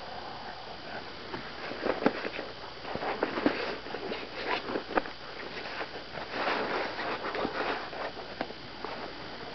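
Irregular rustling with scattered clicks and light knocks, coming and going in short clusters.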